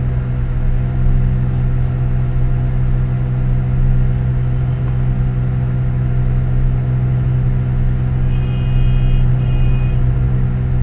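Steady low mechanical hum. Near the end come two short high-pitched beeps.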